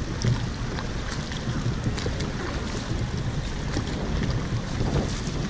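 Wooden canoe paddles dipping and splashing in the water in uneven strokes as a crew paddles along. Wind rumbles steadily on the microphone underneath.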